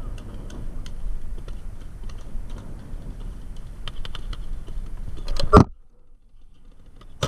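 Scattered sharp pops of paintball markers firing, with one much louder, closer pop about five and a half seconds in. Right after it the sound drops away almost completely for about a second and a half.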